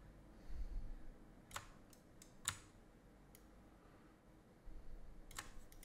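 A few faint clicks of a computer mouse and keyboard, a sharp one about a second and a half in, another about two and a half seconds in and a couple more near the end, with soft low bumps in between.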